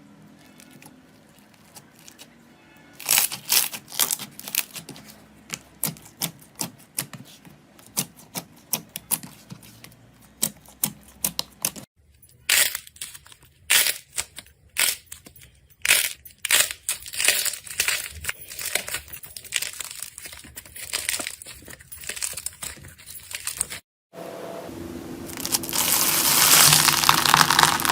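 Slime being squeezed and pressed by hand, giving many sharp popping and crackling clicks in quick runs. The sound cuts off twice as one clip gives way to the next; in the last few seconds it turns into a louder, denser crackle over a low steady tone.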